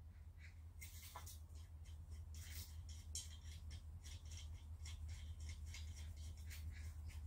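Faint, irregular metal clicks and scrapes as a pipe joint connector is worked onto galvanized steel greenhouse frame pipe by hand, over a steady low hum.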